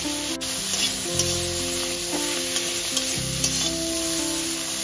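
Prawn heads and slit green chillies sizzling in hot oil in a metal kadai, stirred and scraped with a metal spatula.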